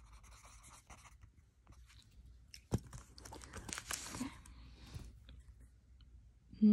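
Faint rustling and scraping of paper as the spiral-bound textbook and the recording phone are handled, with one sharp click a little under three seconds in.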